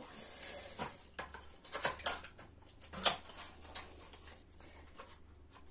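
Light clicks, taps and rustles of small desk supplies being handled and put away, with a sharper click about three seconds in.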